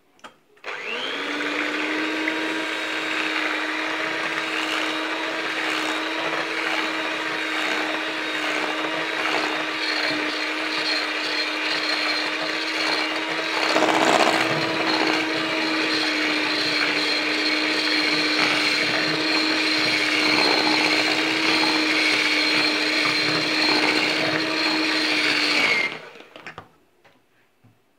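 Electric hand mixer running steadily, its beaters whipping eggs and sugar in a stainless steel bowl. It starts about a second in and switches off near the end.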